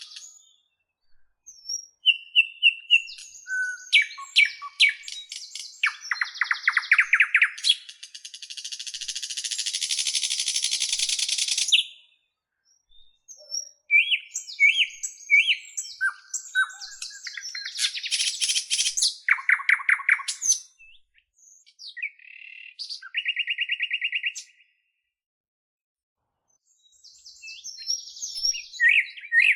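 A bird singing a varied song of chirps, fast trills and rapid clicking phrases, with a long harsh buzzing rattle about a third of the way in and short pauses between phrases.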